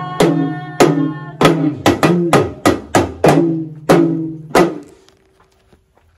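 Yoruba hourglass talking drums (dundun) beaten in a quick rhythm of pitched, ringing strokes, about three a second, which stops about four and a half seconds in.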